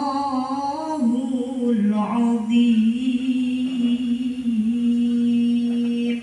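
A qori's voice reciting the Quran in melodic tilawah style, unaccompanied, holding long ornamented notes that waver in pitch, with one long held note through the second half.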